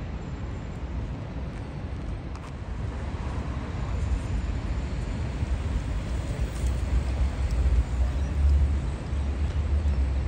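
Low rumble of city road traffic that builds up about a third of the way in and stays loud, with a few faint ticks.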